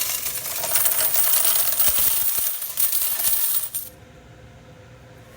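A mass of coins collected from a vending machine jingling and clattering together, stopping abruptly about four seconds in.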